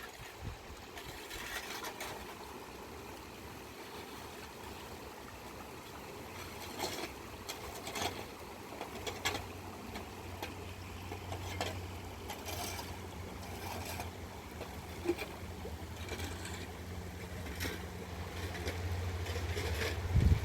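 Rain and running floodwater, with scattered drip-like ticks; a steady low hum joins about halfway through.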